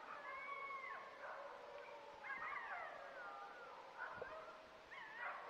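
A pack of wild dogs howling in chorus, several long, wavering howls overlapping and rising and falling in pitch, faint with distance.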